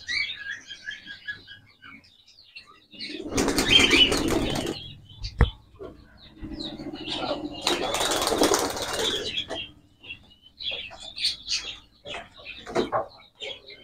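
Domestic pigeons flapping their wings in two bursts, the first about three seconds in and lasting under two seconds, the second about six and a half seconds in and lasting around three seconds, with a single sharp knock between them. Small scuffs and faint chirps follow near the end.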